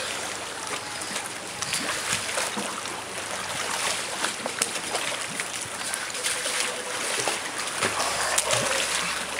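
Water splashing and sloshing as a group of elephant seal pups swim and thrash in a small pool, a continuous churn with many small sharp splashes.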